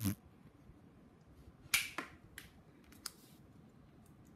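A few light, sharp clicks and taps from small cardboard craft pieces being handled on a wooden floor, the loudest a little under two seconds in.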